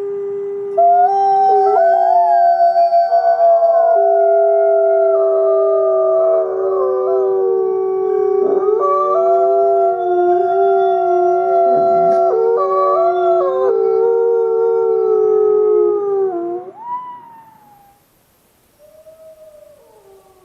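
A pack of wolves howling in chorus: several long, held howls at different pitches overlap, then die away about three-quarters of the way through. A single fainter howl falls in pitch near the end.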